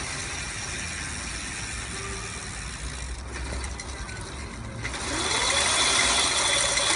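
Homemade electric bicycle's motor drive running, with a mechanical ratcheting, gear-like clatter. About five seconds in, a rising whine comes in and the sound grows louder as the motor speeds up.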